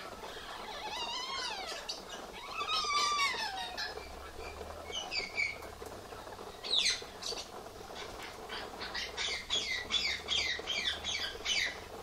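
Amazon parrots calling: two drawn-out whistled calls that rise and fall in the first few seconds, then a quick run of short repeated squawks near the end. Underneath runs the steady hiss of the aviary's misting sprinklers.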